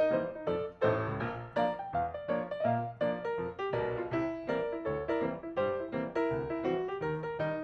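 Background music: piano playing a steady run of quick notes over a bass line.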